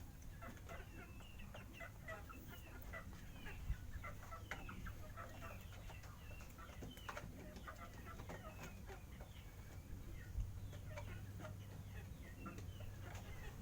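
Birds calling: many short chirps and clucks in quick succession, over a low steady hum, with two soft knocks.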